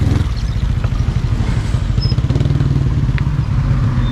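Motorcycle engine running steadily at a low pitch.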